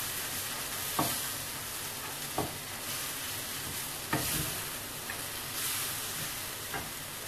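Seafood in a wet black-pepper sauce sizzling in a frying pan while a spatula stirs it, with three short knocks of the spatula against the pan in the first half.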